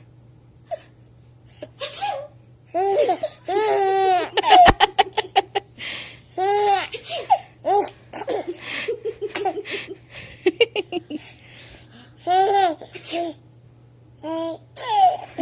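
A baby laughing hard in repeated short bouts of belly laughs and giggles, with one rapid run of hiccuping laugh pulses about four and a half seconds in.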